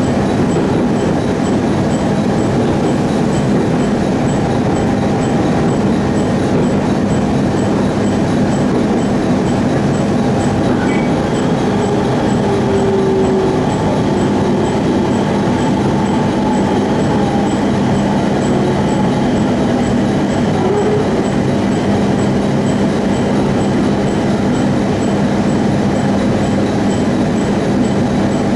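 A JR East 701 series electric train running, heard from inside the passenger cabin: a steady, even rumble of wheels and running gear, with a constant low hum.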